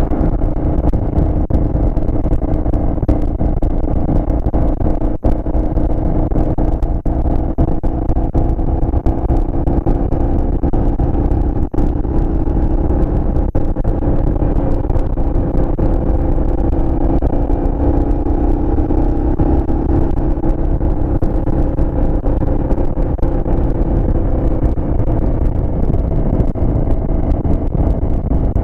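Aprilia Shiver motorcycle's V-twin engine running at a steady cruising speed, heard from a camera mounted on the bike, over a heavy low rush of wind and road noise. The engine pitch holds nearly even, with only small rises and falls.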